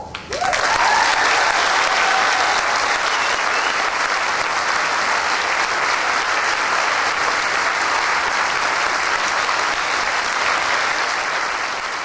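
A large crowd applauding, starting suddenly and holding steady, easing off slightly near the end.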